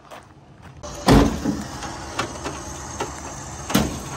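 A sudden loud crash about a second in as a pickup's rope pull tears a crumpled body panel off a wrecked car's side, followed by a steady rough noise with scattered knocks as the panel is dragged over gravel, one more sharp knock near the end.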